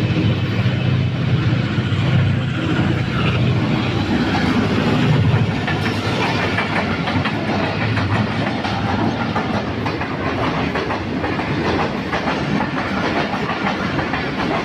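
Pakistan Railways Tezgam express passenger train passing close by at speed: a low rumble for the first six seconds or so, and a fast, even clickety-clack of coach wheels over the rail joints throughout.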